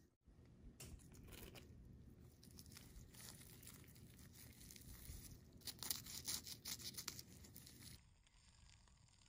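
Crunchy breadcrumb-coated toast roll crackling as gloved hands squeeze and bend it: a run of small dry crackles, loudest about six to seven seconds in.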